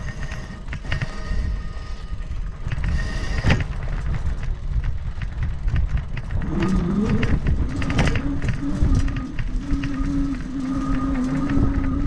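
Ride noise from an e-bike on rough trail: a steady low rumble of tyres over broken asphalt and dirt, with frequent rattling clicks from the bike. About six seconds in, the rear hub motor's whine comes in, rising in pitch and then holding steady as the bike speeds up.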